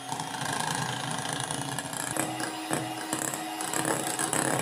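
Scarlett electric hand mixer running steadily, its twin beaters whipping cream in a bowl, with a constant motor hum and a few faint knocks.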